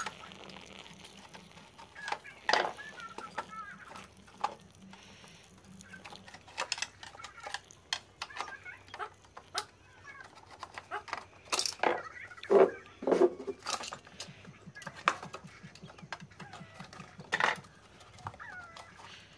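Scattered clicks and knocks of a screwdriver and metal parts as a mixer grinder's motor is unscrewed from its metal housing, with hens clucking now and then in the background.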